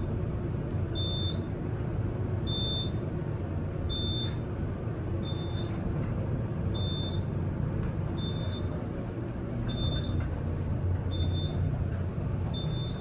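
Otis traction elevator car travelling at 500 feet per minute: a steady low rumble of the ride, with a short high beep about every second and a half, a floor-passing tone as the car passes each floor.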